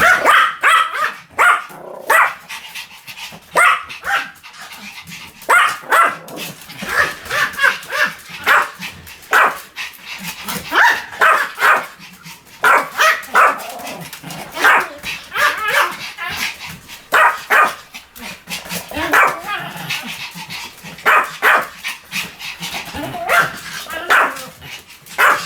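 Pomeranian barking: short, high-pitched yaps coming in irregular bursts of several barks at a time.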